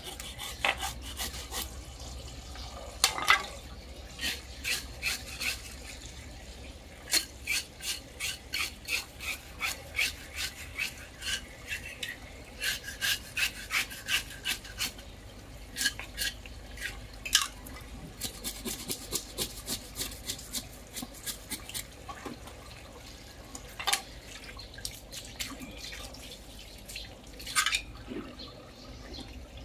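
Knife blade scraping scales off a large carp in runs of quick repeated strokes, about two a second, with a few louder scrapes between the runs.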